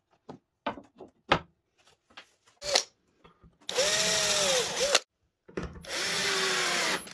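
A few light clicks and taps as a flat steel bar is set into its routed groove in an ash board. Then a cordless drill runs twice, each run about a second and a half, with its pitch rising and falling: first drilling a pilot hole through the bar into the wood, then driving a screw to fix the bar.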